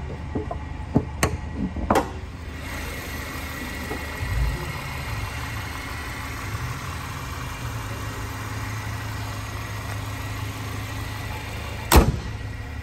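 The 2019 Chevrolet Camaro's 2.0-litre turbocharged four-cylinder engine idling steadily, with a faint steady whine over the low hum. A few light knocks come in the first two seconds, and a loud thump near the end is the hood being shut.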